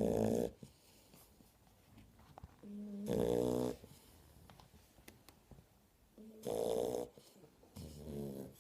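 Shar-pei puppies snoring: four loud snores, the first three about three seconds apart and the last following closer behind, with quiet breathing between.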